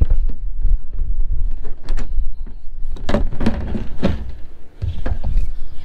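Plastic clicks and knocks from hands working a roof box's side latch and its hook and chain, over a low rumble.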